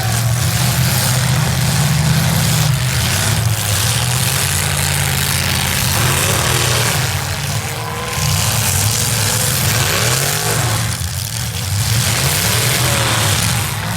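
V8 engines of demolition derby cars running hard and revving, with pitch rising and falling over and over.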